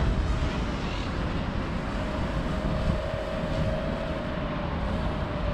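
Holy Stone Bolt Bee mini quadcopter flying, its motors and propellers giving a steady, slightly wavering whine. Wind rumbles on the microphone underneath.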